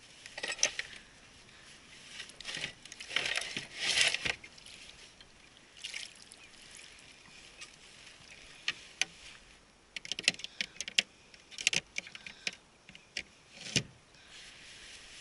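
Gear being handled aboard a plastic fishing kayak: scattered sharp clicks and knocks, with short splashes and drips of water in between.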